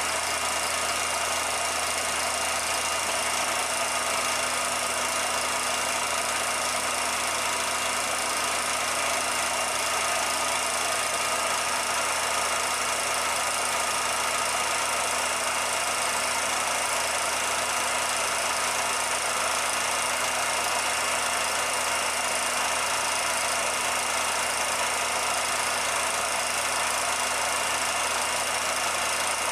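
A steady, unchanging mechanical hum with hiss, holding the same level and pitch throughout with no passing or revving.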